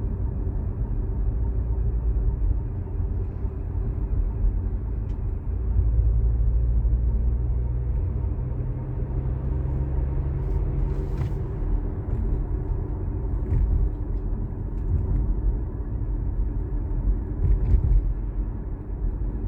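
Audi S4 Avant being driven, a steady low rumble of engine and road with a louder stretch about six seconds in. A few short high-pitched noises break through now and then, which the owner takes for the squeaks the car makes while driving.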